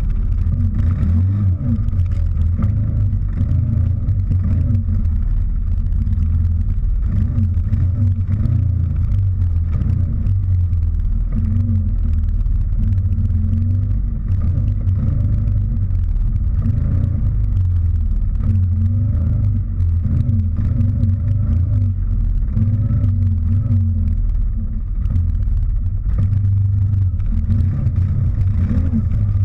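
CFMOTO Gladiator X8 ATV's V-twin engine pulling the machine over gravel and grass, its revs rising and falling again and again, over a heavy low rumble.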